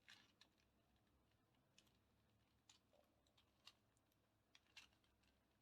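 Faint, scattered clicks of a 4x4 Rubik's cube's plastic layers being turned by hand.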